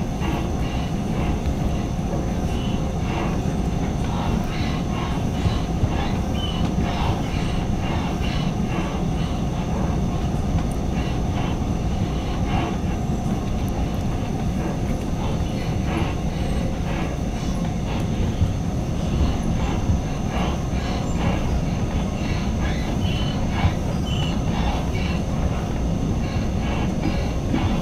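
Interior running noise of a Taiwan Railway EMU600 electric multiple unit in motion: a steady rumble of the wheels on the rails, with a thin steady whine above it and scattered light clicks.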